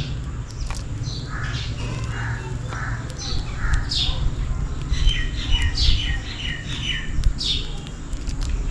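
House sparrows chirping: many short, repeated chirps, with a quick run of them about five seconds in, over a steady low background rumble.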